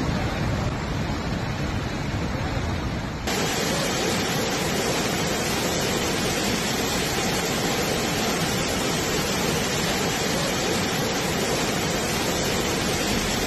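Rushing floodwater: a steady, loud wash of churning water noise, changing abruptly in character about three seconds in.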